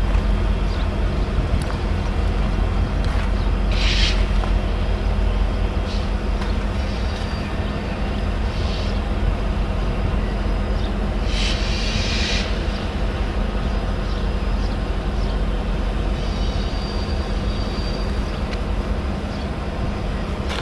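Freight train passing: diesel locomotives running with a steady low rumble and hum, then coal hopper cars rolling by on the rails. Two short high-pitched squeals, about four seconds and twelve seconds in.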